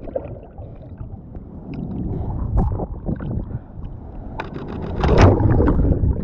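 Seawater sloshing and splashing against a camera at the waterline in the surf, building into a louder churning rush of water about four and a half seconds in as it ducks under a breaking wave.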